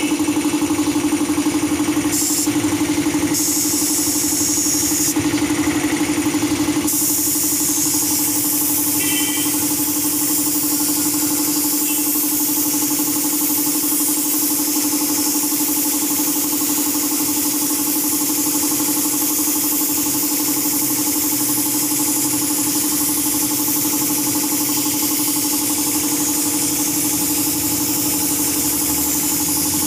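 Air compressor running steadily while a gravity-feed spray gun hisses as it sprays paint. The hiss comes in short bursts for the first few seconds, then runs continuously.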